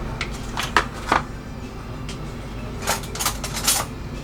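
Light clicks and knocks of kitchen utensils as butter is taken out and put into a frying pan, coming in a few quick clusters, the busiest about three seconds in.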